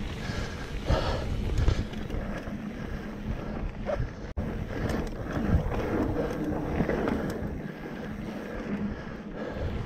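Wind buffeting the microphone over the rumble and rattle of a mountain bike rolling over a rooty dirt trail, with scattered knocks. The sound cuts out for an instant a little over four seconds in.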